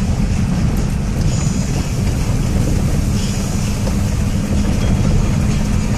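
Land Rover Defender's engine and drivetrain heard from inside the cab, running at a steady low rumble as it drives along a rough grass track, with brief hissing patches about a second and a half and three seconds in.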